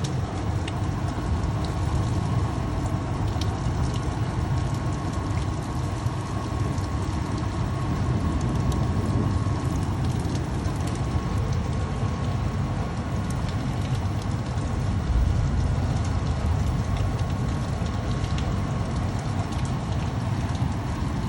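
Steady heavy rain falling, with a continuous low rumble underneath and scattered small ticks of drops.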